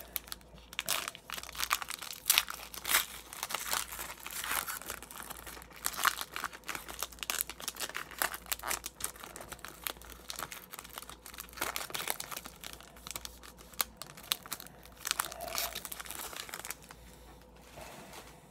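Shiny foil wrapper of an Upper Deck hockey card pack crinkling as it is torn open and handled: a dense run of irregular crackles that dies away near the end.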